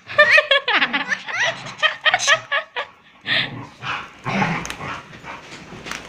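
Pet parrot calling in a rapid string of short chirps that bend up and down in pitch for about three seconds, then harsher, raspier squawks.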